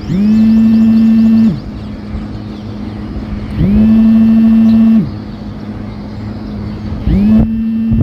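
A vehicle horn honking three times: two long steady blasts of about a second and a half, then a short one near the end, each sliding up to pitch as it starts. A steady traffic hum runs underneath.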